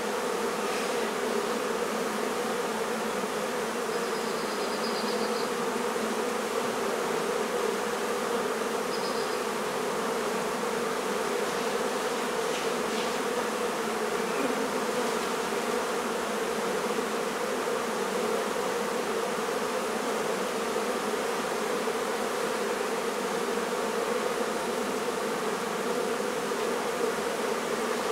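A mass of honey bees from an exposed colony buzzing: a dense, steady hum with no let-up.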